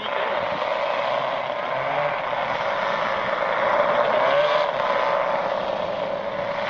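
The four 160cc engines of a giant RC model airplane droning steadily in flight, their pitch wavering slightly as the plane flies past, a little louder about four seconds in.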